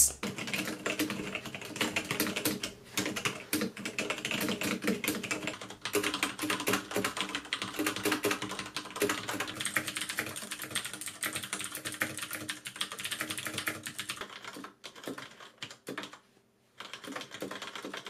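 Sound test of mechanical keyboard switches: fast typing on a Logitech G810 with Romer-G switches, then on keyboards with Cherry MX Blue, MX Brown and MX Red switches, each a rapid run of key clacks. A brief near-silent gap falls near the end, between two of the keyboards.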